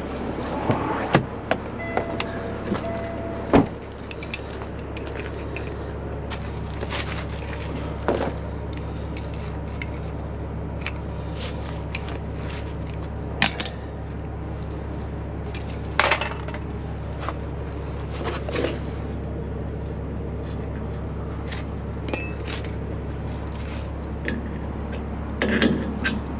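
Metal hand tools clinking: sockets rattled in a metal socket tray and a wrench knocking on bolts, in scattered sharp clinks. Under them runs the steady low hum of an idling truck engine.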